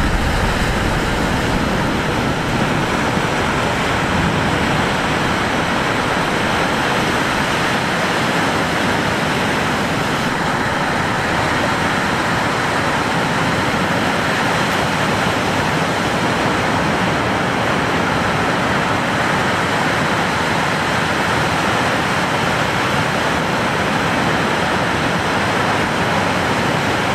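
Steady, unbroken roar of breaking lake surf and strong wind, with no distinct events.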